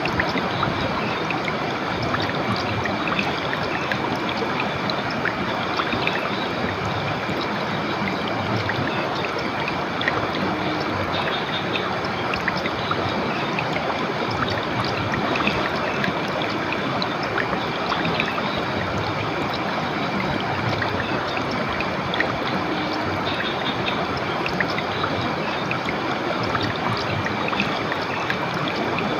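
Clear river water flowing steadily over rocks, an even rushing sound without pause.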